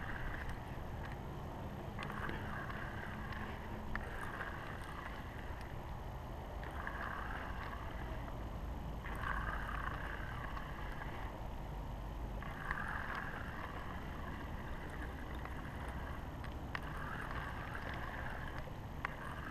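Water lapping against a kayak hull, with a fishing reel whirring in repeated spells of about two seconds while a hooked gar is played on a bent rod.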